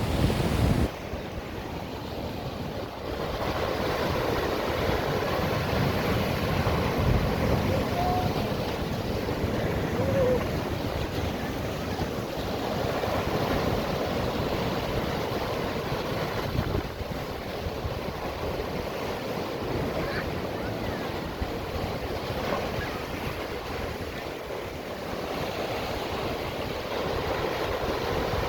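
Ocean surf washing continuously around seaside rock pools, with wind buffeting the microphone.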